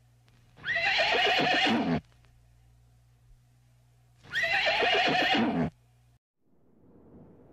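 Horse whinnying twice, the same call a few seconds apart, each about a second and a half long and falling in pitch. A faint rushing noise swells in near the end.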